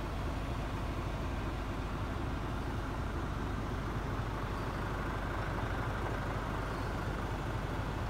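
Scania R450 tractor unit's 13-litre straight-six diesel idling steadily, heard from inside the cab.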